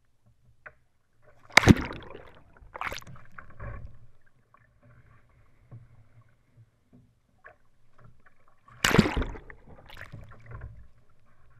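Water splashing and sloshing against a sea kayak as the paddler capsizes and rolls back up in a butterfly roll. There are two loud splashes, one about two seconds in and one about nine seconds in, with smaller slaps of water between them.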